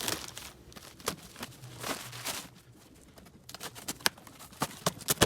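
Cardboard shipping box being opened and unpacked: short tearing and rustling sounds, then a run of irregular sharp clicks and knocks from the packaging being handled.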